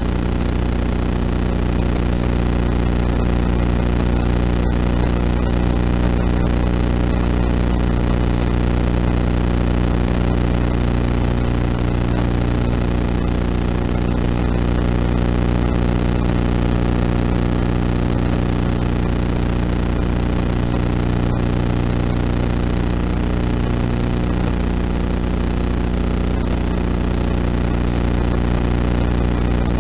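A steady, unchanging drone with several even pitches over a haze of noise, picked up by the microphone of the foam-board glider's onboard FPV camera in flight. The uploader calls the audio not good.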